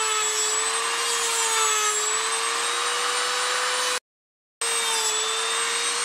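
High-speed rotary tool with a fiber cutoff wheel grinding down the cutter teeth of a chainsaw chain: a steady high whine over a gritty grinding hiss. It breaks off for a moment about two-thirds through, then resumes. Near the end it winds down with a falling whine.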